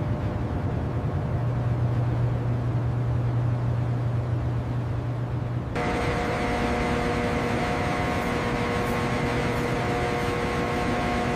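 Steady low mechanical rumble with a constant hum. About six seconds in it changes abruptly to a noisier drone carrying several steady whining tones.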